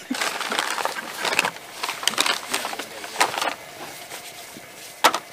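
Irregular rustles and light clicks of things being handled on a folding table, with one sharp knock near the end.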